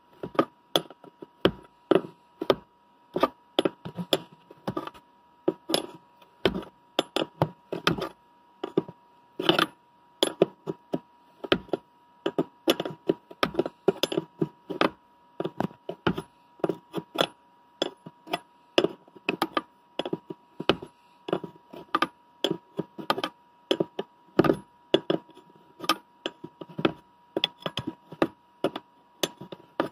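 Steel wrench clicking and clinking against a nut welded onto a stripped steel bolt, in quick irregular strokes about twice a second, as the bolt is worked loose and turned out.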